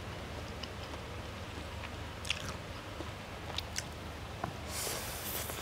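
A person eating spaghetti aglio olio with prawns: soft chewing and mouth sounds with a few sharp clicks, then a short hiss near the end.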